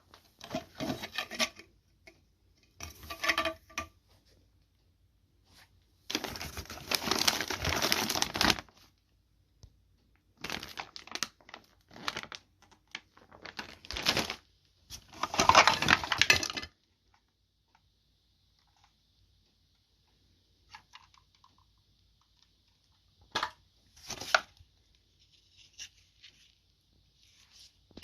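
Handling noise: irregular bursts of rustling and clattering, each up to a couple of seconds long. They stop about two-thirds of the way through, leaving a faint steady hiss with a few light clicks.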